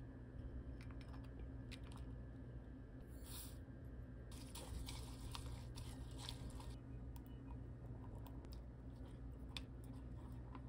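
Silicone spatula stirring a thick soy-based seasoning sauce in a glass measuring cup: faint wet scraping and small clinks against the glass. A short rustle about three seconds in, as ingredients are tipped in, all over a low steady hum.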